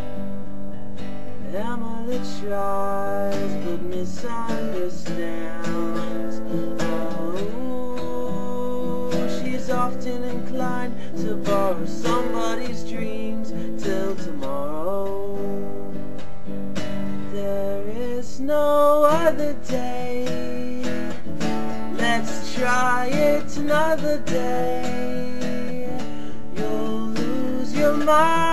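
Martin D-15 all-mahogany acoustic guitar strummed in steady chords, with a man singing along over it.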